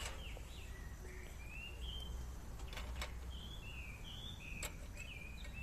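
A bird calling over and over, a string of short slurred chirps that slide up and down, with a few light clicks from handling a metal-and-glass candle lantern.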